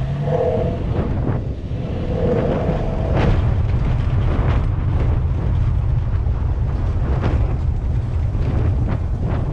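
Heavy wind buffeting on the microphone of a vehicle-mounted action camera as a Toyota FJ Cruiser drives over a rough grass track, with scattered knocks from the bumps.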